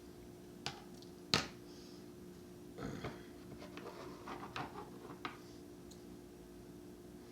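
Handling noise: two sharp clicks about a second in, then a run of small clicks and rustles, over a faint steady hum.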